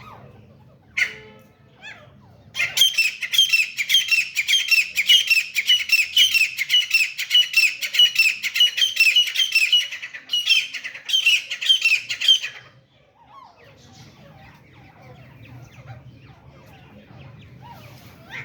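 Grey francolin calling: a loud, rapid series of harsh repeated notes lasting about ten seconds, breaking off briefly and then stopping abruptly. A faint low hum lies underneath before and after the calls.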